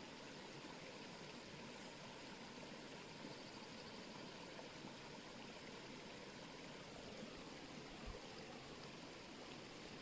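Faint, steady rush of running water, a small stream flowing.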